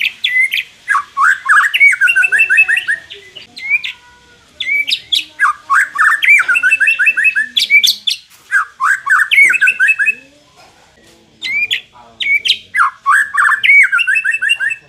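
White-rumped shama singing: four loud phrases, each a fast run of sweeping whistled notes with short pauses between. This is the kind of song played to rouse a shama that lacks fighting spirit.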